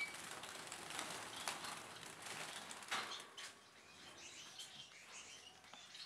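Gouldian finches fluttering and flapping their wings in a wire cage as they are caught by hand, in short scrambling bursts, with some chirping.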